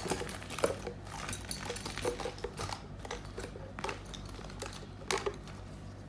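Art supplies being handled and set down on a table: irregular light clicks, taps and rattles, with sharper knocks about half a second in and around five seconds in, over a steady low electrical hum.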